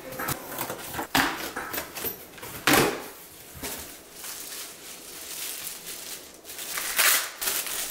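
Cardboard shipping box being opened by hand, its flaps scraping and folding back in a few loud rustles, then a clear plastic bag crinkling near the end as a wrapped item is lifted out.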